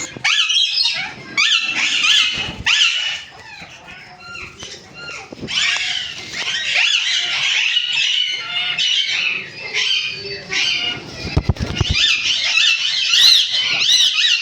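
A mixed flock of parrots chattering and squawking, with many short, arching calls overlapping. The calls thin out for a second or two a few seconds in, then build up again.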